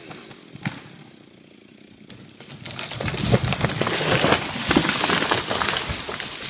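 A chainsaw's running note drops and stops, and a single sharp crack follows a moment later. From about three seconds in, the cut top of a Douglas fir crashes down through the branches: a dense, loud run of cracking and snapping limbs and wood.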